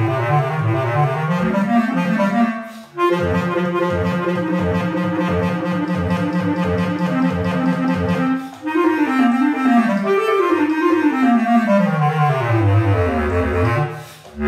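Solo bass clarinet playing rapid runs of a velocity study. A climbing run and a fast repeated figure give way to falling runs down into the low register, with three brief breaks between phrases.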